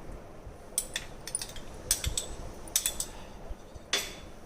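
A spoon clinking against a bowl about five times as ginger and green chilli paste is spooned into the egg and spice mixture, the last clink the loudest.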